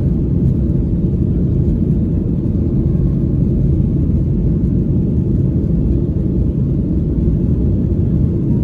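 Steady low rumble of cabin noise inside a Boeing 737-800 airliner, the engines and airflow heard from a passenger seat.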